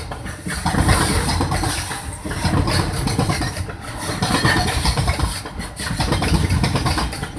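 Loaded container flat wagons of a long freight train rolling past: steel wheels rumbling and clattering on the rails, the noise swelling and easing every second or two as each pair of bogies goes by.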